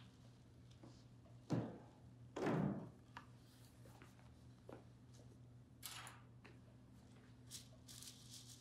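Large sheets of paper being handled on a print table. Two dull thumps come about a second and a half and two and a half seconds in, the second longer. After them come light taps and dry paper rustles.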